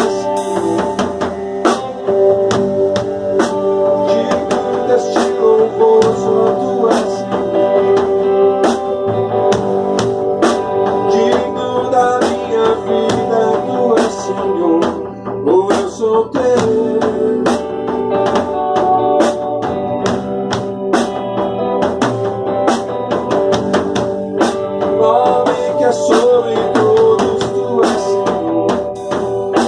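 A band playing in rehearsal: guitar over a drum kit keeping a steady beat.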